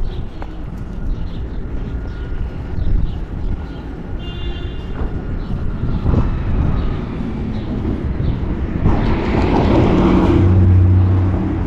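Outdoor rumble of traffic with a motor vehicle passing close. Its noise swells about nine seconds in, and a steady low engine tone is loudest near the end.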